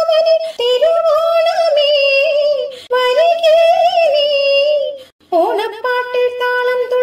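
Background music: a high female voice singing long, gliding melodic phrases, with a brief break about five seconds in.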